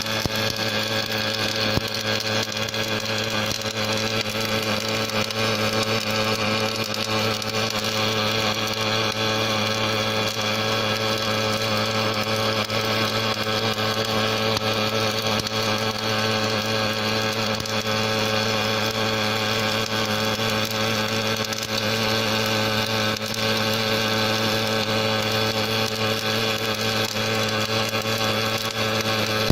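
Automatic MIG welding machine running a weld on a hydraulic cylinder: a steady crackle from the arc over a constant low hum.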